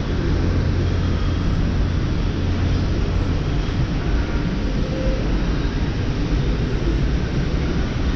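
Steady low mechanical rumble and hum of machinery at a warehouse loading dock, unchanging throughout.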